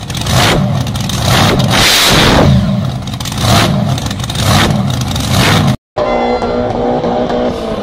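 Twin-engine supercharged dragster being revved in the pits, the engines blipped up to loud peaks about four times. About six seconds in the sound cuts off and another car's engine idles with a steady note.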